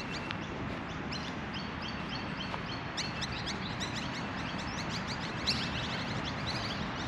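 Birds calling in quick runs of short, high chirps, the loudest about five and a half seconds in, over a steady low background rumble.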